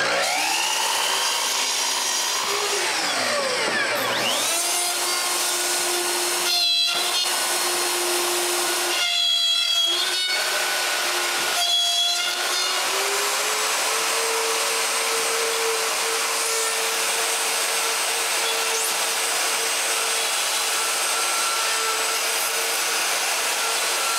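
Electric router running and cutting dovetails in wood, a steady high whine over cutting noise. The whine drops in pitch under load, and it is briefly interrupted a few times in the middle.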